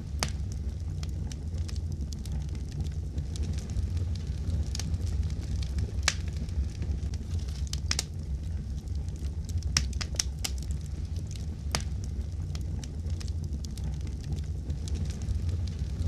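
Fireplace fire crackling: irregular sharp pops and snaps over a steady low rumble.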